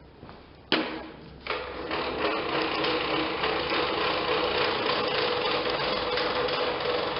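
Two knocks, then the blade-height adjustment of a DeWalt DW745 table saw being cranked: its elevation gears and freshly oiled metal rod grinding and clicking steadily as the blade moves.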